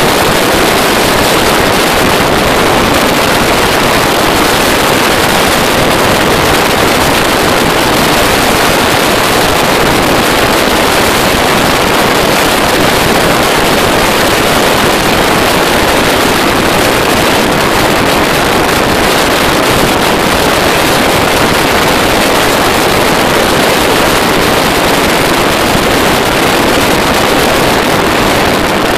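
Loud, steady rush of wind past the open window of a moving car, buffeting the microphone, with the car's running noise underneath.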